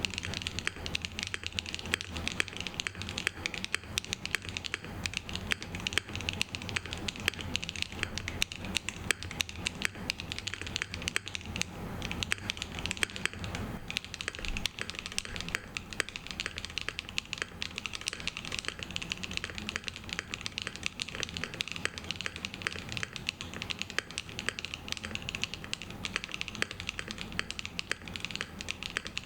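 Continuous fast typing on a Rule60 V3 custom mechanical keyboard fitted with BSUN Taichi switches on a polycarbonate plate: a dense, unbroken stream of keystroke clacks.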